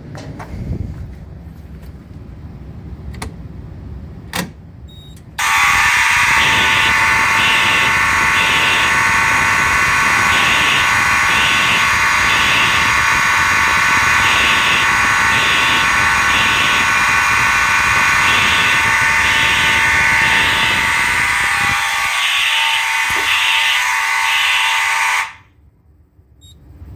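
A bank of about twenty Simplex fire alarm horns and horn strobes sounding together. About five seconds in they start at once in a loud, steady blare, with horns pulsing in groups of three: the temporal-3 evacuation pattern. They cut off suddenly near the end after about twenty seconds; before they start there are only a few faint clicks.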